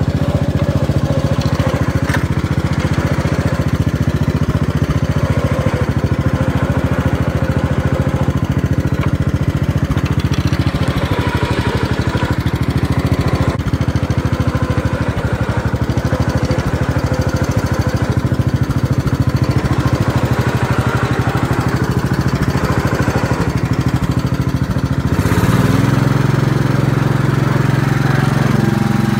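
Kohler K321 single-cylinder engine of a Gravely 432 riding tractor running steadily, its sound growing deeper and a little louder near the end. It is a freshly rebuilt engine that the owner hears starting to knock after a few minutes' running, and he suspects the piston-to-bore clearance is too tight.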